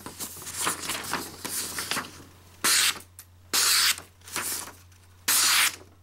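Factory-sharp CPM S35VN blade of a Spyderco Resilience Lightweight slicing through a hand-held sheet of printer paper. There is paper rustling for the first couple of seconds, then three short, crisp hissing slices in the second half. The clean cuts are the sign of an excellent, very sharp factory edge.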